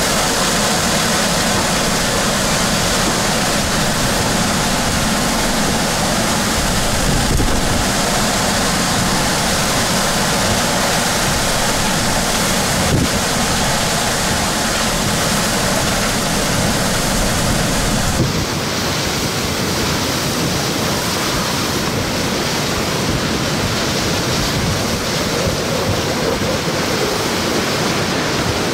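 Hurricane-force wind and heavy driving rain, a loud steady rush of noise with a low rumble underneath. About two-thirds of the way through, the rumble drops out abruptly, leaving a thinner rush of wind and rain.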